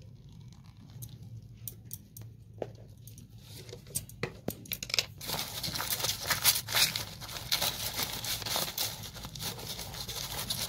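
Large dry-edged leaves crinkling and crackling as hands rub oil around inside a bowl made of stacked leaves. A few scattered crackles at first, then a dense, continuous crackle from about halfway through.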